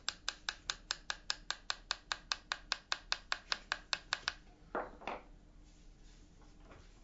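Small hammer tapping a metal punch to drive the pivot pin through a metal detector cam-lock's thumb bar: quick, light, even metal taps, about five a second, that stop about four seconds in. Two short, duller knocks follow.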